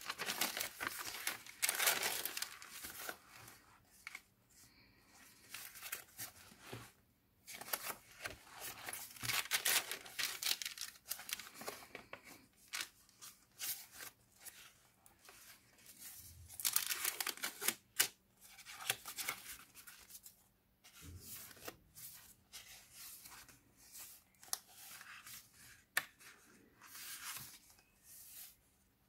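Thick, stiff pages of a handmade junk journal being turned and handled: paper rustling and crinkling in irregular bursts, with sharp little snaps of page edges and quieter pauses between turns.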